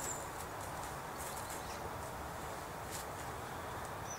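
Garden ambience: a steady background hiss with a few faint soft steps on grass from a crouched duck walk. A bird's high trill ends just after the start and starts again at the very end.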